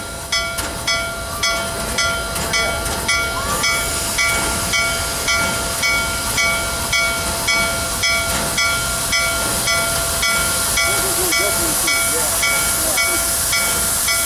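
Nickel Plate Road 765, a 2-8-4 Berkshire steam locomotive, with its bell ringing steadily about twice a second. A steam hiss grows louder from about four seconds in, over a steady hum.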